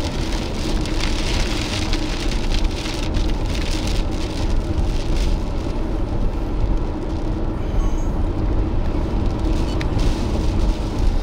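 Storm wind and rain noise from a storm-chase vehicle facing a tornado: a dense low rumble with rain pattering over it and a faint steady hum.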